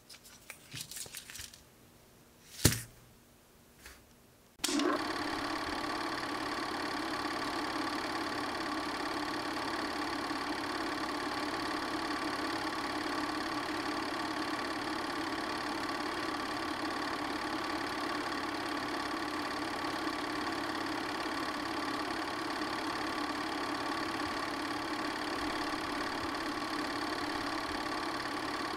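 A small plastic 8mm film reel handled with a few light rattles and one sharp click, then about five seconds in a film projector starts and runs steadily, an even mechanical whir with a constant hum.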